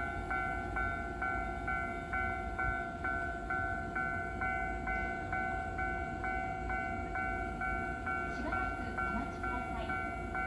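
Japanese railway level-crossing warning bell ringing in a steady, rapid ding-ding, a little over two strokes a second, over a low rumble.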